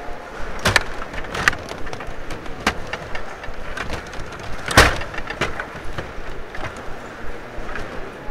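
Table hockey game in play: the metal control rods sliding and turning, the plastic players clattering, and the puck clacking against sticks and boards. A few sharp knocks stand out, the loudest about five seconds in.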